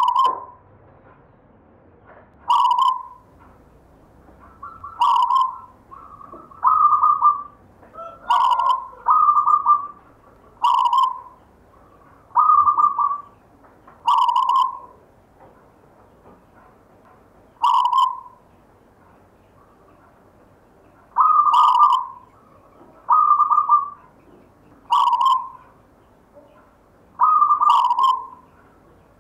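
A zebra dove (perkutut) cooing over and over: short coo notes and two- or three-note phrases every one to two seconds, many of them starting with a sharp click.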